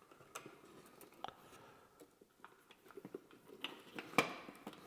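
Faint handling sounds of electrical wire and hand tools at a switch box: scattered small clicks and taps, with one sharper click about four seconds in.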